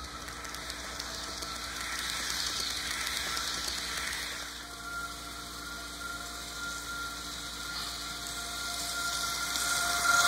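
HO scale Märklin Railjet Taurus model train running past at half throttle: a steady hissing rattle of wheels on the rails with a faint motor whine, both getting louder near the end as the locomotive comes close.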